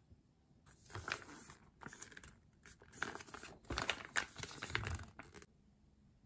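A packaged plastic pouch crinkling and rustling as it is handled, in irregular bursts that are loudest about three to five seconds in.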